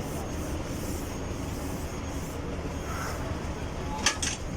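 Steady low rumble of background machinery or traffic noise, with two quick sharp clicks about four seconds in.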